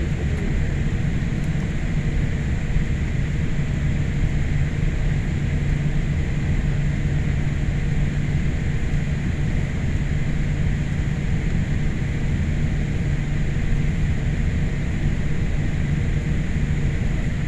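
Steady cabin noise inside a Boeing 787 airliner: the even, unchanging low rumble of the jet engines and airflow, with a faint constant hum running through it.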